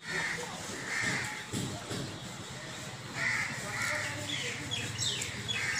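Crows cawing several times, with quick falling chirps from smaller birds near the end.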